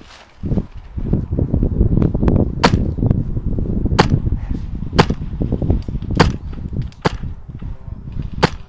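Single shots from an HPA-powered Wolverine MTW airsoft DMR, six sharp cracks about a second apart, fired semi-auto over a dense low rumble.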